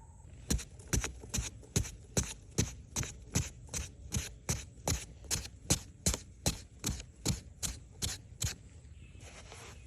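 A steady run of sharp strikes, about two and a half a second for roughly eight seconds, then they stop, like repeated chopping or hammering.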